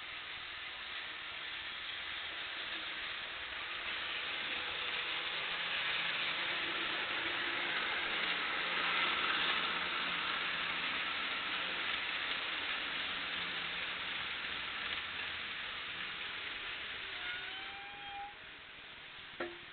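Loaded model coal train rolling along the layout's track, a steady rush of wheels on rail that grows louder as it passes close by and then eases off. A short rising squeal comes near the end, and a sharp click just before it ends.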